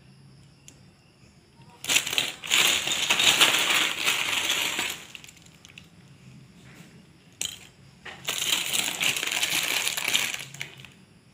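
Loose plastic LEGO bricks and minifigures clattering and clicking against each other as a hand digs through a heap of them in a plastic bag, in two spells of a few seconds each.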